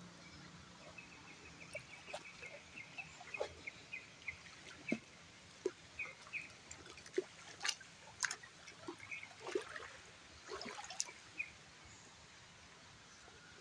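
Shallow stream trickling faintly, with a bird chirping in a run of short repeated notes through the first two-thirds, and scattered small clicks, knocks and splashes from wading and handling among stones and leaf litter.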